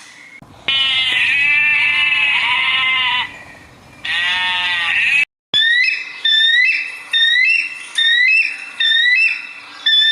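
Animal bleating: two long, quavering bleats, then a quick run of about seven short calls that each rise at the start.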